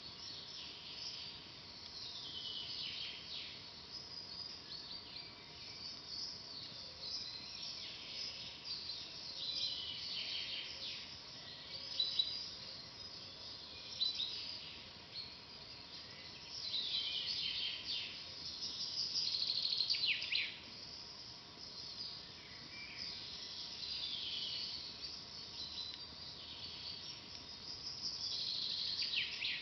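Songbirds singing in a forest, with repeated falling chirps and trills, and two sharp pops from a wood campfire crackling near the middle.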